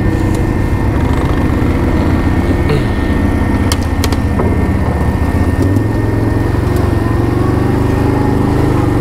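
ATV engine running steadily as it rides along a forest track, with a few sharp clicks about three to four seconds in.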